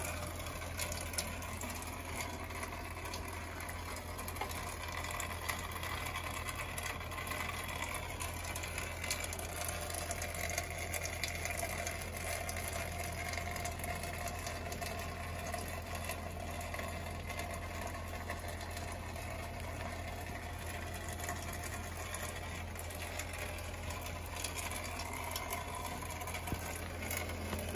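Light rain falling in scattered fine ticks, over a steady low hum that does not change.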